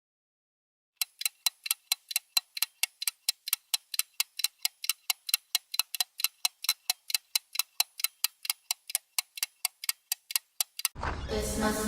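Clock ticking sound effect: fast, even ticks about five a second, starting about a second in. Music with singing comes in near the end.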